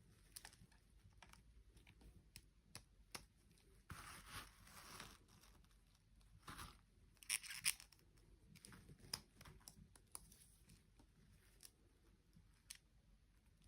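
Faint handling sounds of toy packaging: scattered small clicks and short crinkling rustles, the loudest a brief crinkle about seven seconds in.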